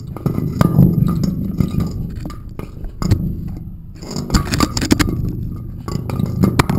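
Irregular clinks and knocks over a low rumbling handling noise, as of a camera bumping and rubbing against a rough surface.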